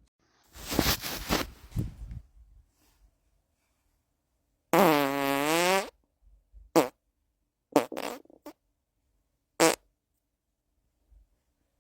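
A run of farts: a crackly, sputtering one lasting over a second near the start, a long pitched one of about a second near the middle, then several short ones.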